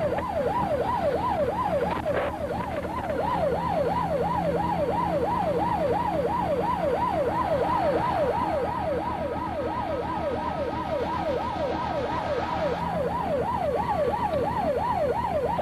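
Police car siren in a fast yelp, sweeping up and down about three times a second without a break, over a steady low engine and road hum.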